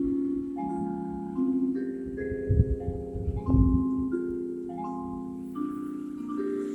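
Church bells playing a tune, a new note struck about twice a second, each note ringing on under the next. Two short low rumbles come in the middle.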